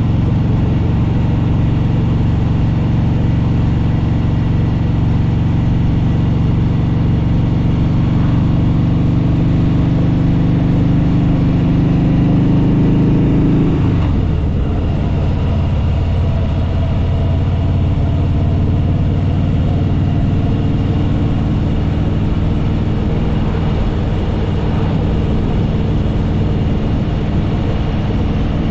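Harley-Davidson Fat Boy Lo V-twin engine running under way at cruising speed, with a steady, loud exhaust note. About halfway through the note rises a little and then drops abruptly to a lower pitch, which holds steady after that.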